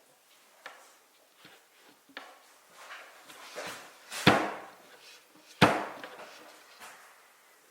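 Wooden pieces being handled and set down: scattered light taps and clicks, with two louder sharp wooden knocks about four and five and a half seconds in.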